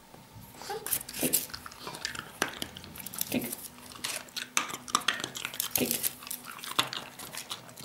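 A Border Terrier's claws scratching and scraping at a textured wall in irregular, repeated strokes.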